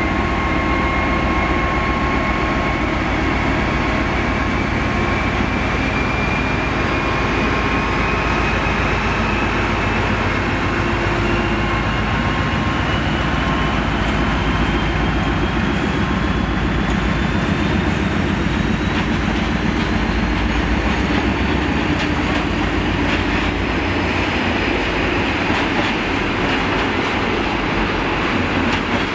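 A diesel freight locomotive passes with a long train of loaded timber wagons, its engine running under a thin whine that slowly rises in pitch. In the second half the wagons rumble by, their wheels clicking over the rail joints.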